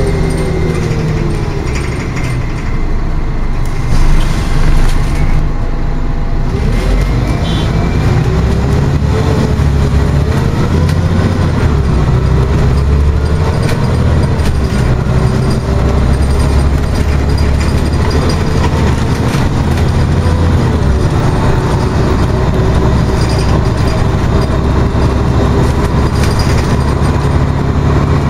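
Scania OmniCity articulated bus heard from inside the passenger saloon while on the move: a steady engine drone with a whine that rises and falls in pitch as the bus speeds up and slows.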